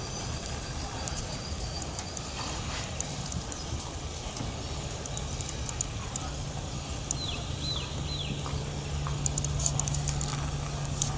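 Outdoor ambience with a steady low rumble, joined about six seconds in by the steady hum of a vehicle engine. A bird gives three quick falling chirps about seven seconds in, and a few sharp clicks follow near the end.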